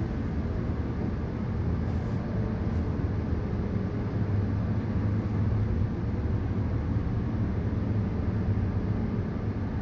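Cabin sound inside a 2019 New Flyer XN40 natural-gas bus, its Cummins L9N engine running with a steady low hum as the bus slows to a stop in traffic.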